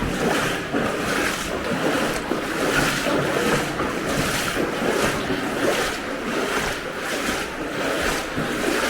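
Footsteps wading through knee-deep floodwater in wellington boots, a rhythmic slosh and splash with each stride, a little more than one a second.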